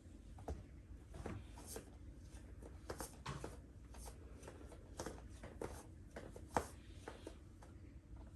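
Faint rustling of clothing and soft taps on a mat from a person doing full prostration bows, irregular, with one sharper tap about six and a half seconds in, over a low room hum.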